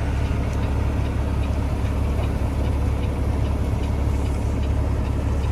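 Diesel engine of a semi truck idling steadily, a low, even hum.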